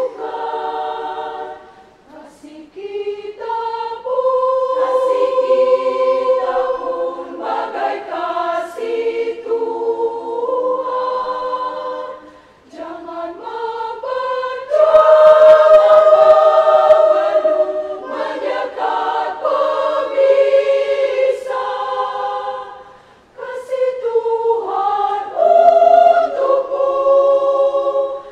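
Women's church choir singing a hymn a cappella in parts, in long sustained phrases with brief pauses for breath, swelling loudest about halfway through.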